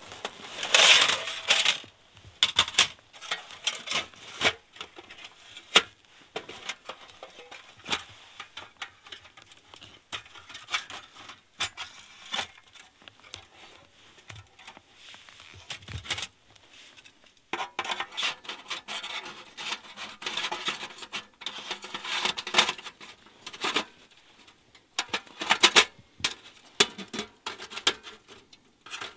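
Thin metal panels of a folding wood-burning camp stove clinking and rattling as they are slotted together: a run of light metallic clicks and taps, busiest in the last third.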